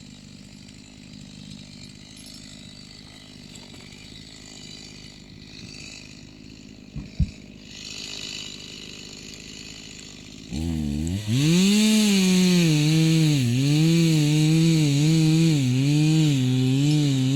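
A small gas engine, most likely a gas-powered ice auger, starts about ten seconds in. It climbs in pitch, then keeps dipping and recovering about once a second, as if loaded and unloaded while drilling through the ice. Before it there is only a low steady background and one short knock.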